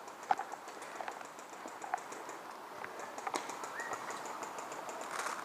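Outdoor ambience with scattered sharp clicks and a faint rapid ticking in the middle, typical of airsoft guns firing in the distance. A short bird chirp comes a little past the middle.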